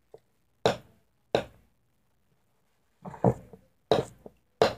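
A stirring utensil knocking against a bowl while mixing thick slime: two separate knocks in the first second and a half, then four or five more in quicker succession from about three seconds in.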